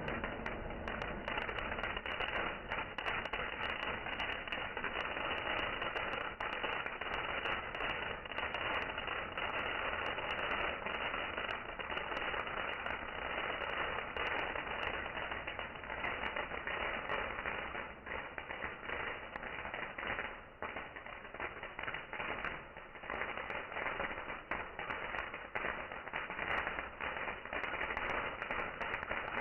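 Fireworks going off in a dense, continuous run of pops and crackles, with a few brief lulls in the second half.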